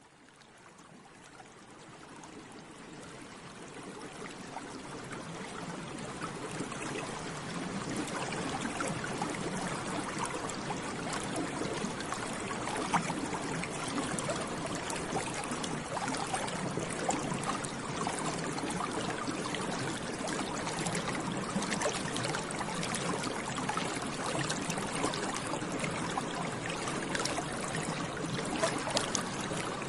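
Bubbles rising and popping in water, a dense stream of small gurgles and pops. It fades in from silence over the first several seconds, then runs steadily.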